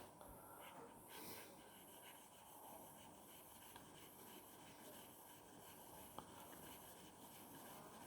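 Faint rubbing of a stainless steel broadhead blade being stroked along fine 1500-grit wet-and-dry sandpaper, with a light tick about six seconds in.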